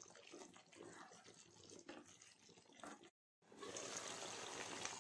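Faint wet scraping and squelching as a wooden spatula stirs chicken in thick creamy gravy in a non-stick frying pan. After a short break about three seconds in, the gravy gives a steady, faint bubbling sizzle as it simmers.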